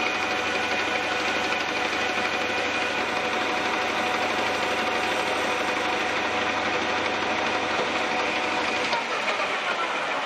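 Metal lathe running steadily while turning the spigot of a chuck backing plate toward finished size: a steady whir with several ringing higher tones. About nine seconds in, the low hum drops out and the sound begins to wind down.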